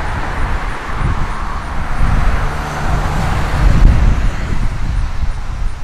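Road traffic going by: engine rumble and tyre hiss from passing motor vehicles, swelling to its loudest about two thirds of the way through and easing off near the end.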